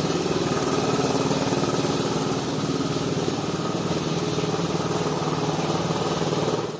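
A small engine running steadily at idle, with a fast even pulsing and a low hum. It cuts off abruptly at the end.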